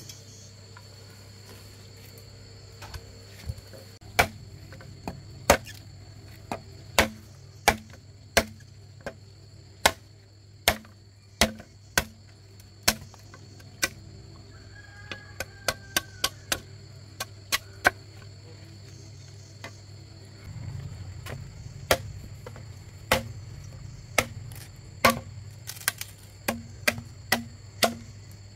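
Repeated sharp strikes of a hand tool, at uneven spacing of roughly one to two a second, with a quicker run of strikes around the middle. Steady insect trilling underneath.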